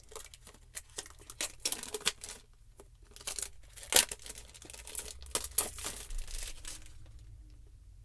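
Packaging wrap crinkling and tearing as an earphone box is cut open with a blade: irregular crackles, the loudest about four seconds in, dying away near the end.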